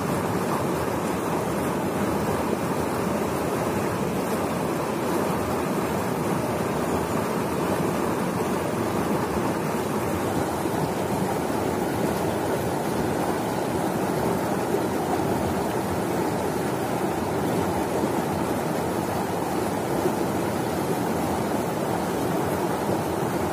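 Stream water rushing over rocks in a steady, even rush that never changes in loudness.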